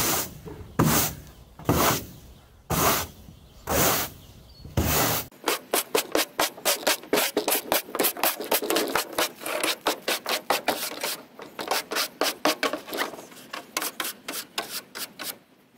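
Stiff-bristled push broom sweeping across an OSB floor panel. There is a long stroke about once a second at first, then from about five seconds in a run of quicker, shorter strokes.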